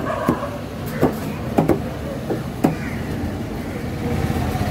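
A heavy curved knife chopping through mackerel tuna onto a wooden block: about six sharp knocks in the first three seconds, two of them close together, over steady street traffic noise.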